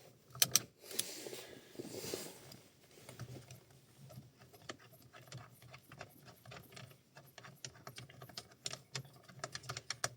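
Half-inch-drive ratchet with extension and 14 mm socket clicking in quick irregular runs as the steering-wheel centre bolt is backed out.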